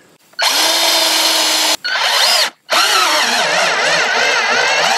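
Black & Decker cordless drill driving screws into a wooden pallet in three runs. There is a steady run of about a second and a half, a short burst, then a longer run with a wobbling pitch.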